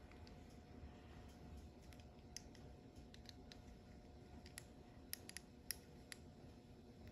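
Pin vise hand drill being twisted by hand, its fine bit cutting into a tiny white part: faint, irregular little clicks and scratches, more frequent in the second half.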